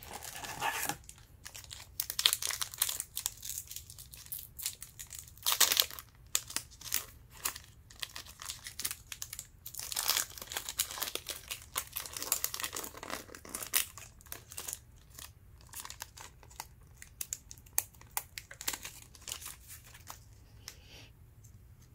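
A 2020-21 Panini Hoops trading-card pack wrapper being torn open and crinkled, in uneven bursts of crackling rustle; after about fifteen seconds only light scattered crackles remain.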